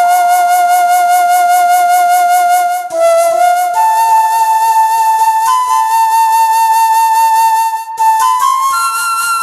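Background music: a slow melody of long held notes with a slight vibrato, changing note about three times.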